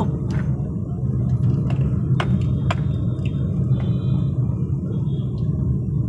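Steady low rumble of a two-wheeler ridden along a city road, with engine and road noise, and a few sharp clicks, two of them close together about two seconds in.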